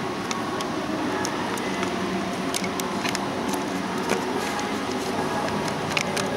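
Steady mechanical hum filling a large room, with faint tones running through it and a scattered series of light clicks and ticks, the sharpest about four and six seconds in.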